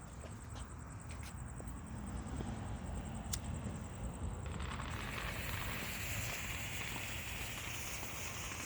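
A few faint clicks, then about halfway through a steady hiss starts suddenly and keeps growing louder: a ground fountain firework catching and spraying sparks.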